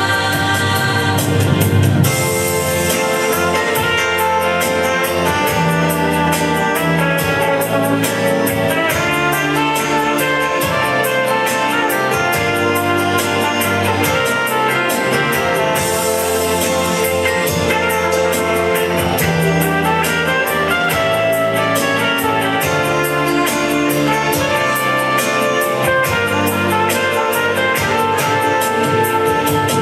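A song with instrumental backing and a steady beat, with singing.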